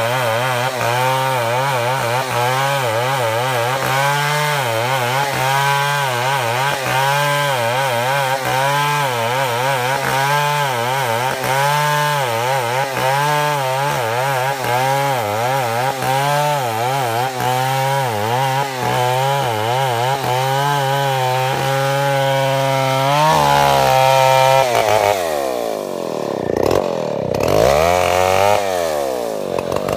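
Stihl 070 two-stroke chainsaw running at full throttle while cutting a large log, its pitch holding steady with a slight waver. About 24 seconds in the engine speed starts swinging up and down, dropping and rising again twice near the end.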